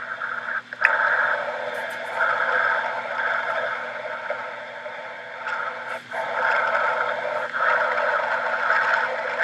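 Playback of an EVP recording: a fluctuating rushing, washing noise over a faint low hum, the sound the investigator calls the "Vortex wash".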